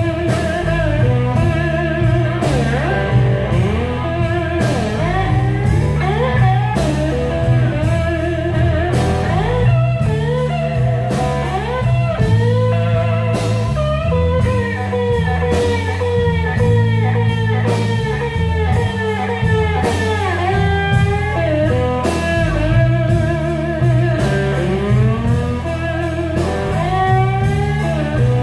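Live blues-rock band: an electric guitar plays a lead solo full of bent and sliding notes over bass and drums.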